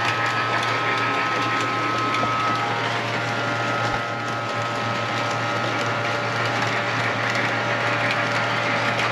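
Lionel O-gauge model train running on the layout: a steady electric motor whir over a constant low hum.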